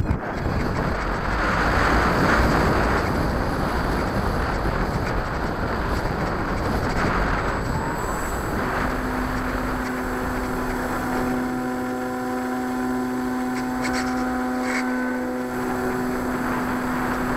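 Rushing wind and propeller noise heard from a camera on board an RC airplane in flight. About nine seconds in, a steady motor hum with a clear pitch comes through and holds.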